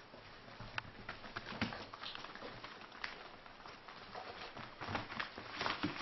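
Light, scattered taps and clicks of four-week-old Central Asian Shepherd puppies' paws and claws as they toddle and scuffle on a floor mat.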